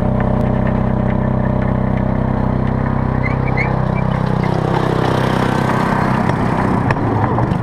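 Engine of a miniature ride-on park train running at a steady pitch as the locomotive passes close by. About four seconds in, the engine tone fades and the rolling rumble of the carriage wheels on the rails takes over, with occasional sharp clicks.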